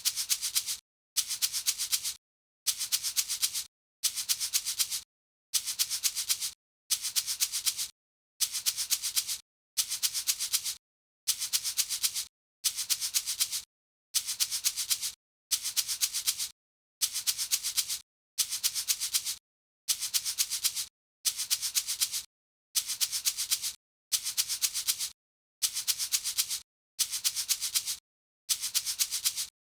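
Salt shaker shaken in short bursts of several quick shakes, the salt grains rattling with a bright hiss. The bursts repeat about every second and a half, with brief silences between them.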